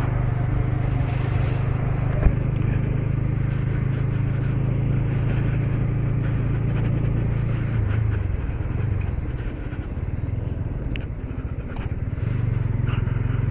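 Motorcycle engine running steadily on the move, easing off about eight seconds in and picking up again near the end.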